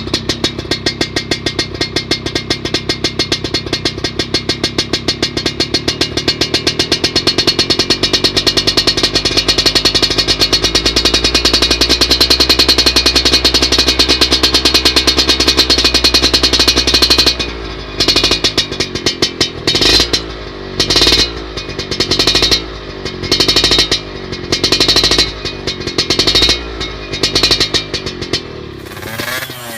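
Yamaha F1ZR two-stroke single-cylinder engine through an aftermarket racing exhaust, running steadily at raised revs for about seventeen seconds, then revved in a string of short throttle blips.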